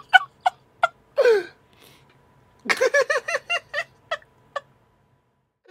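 A man laughing in short bursts: a few single laughs, then a rapid run of them about three seconds in, tailing off with two more.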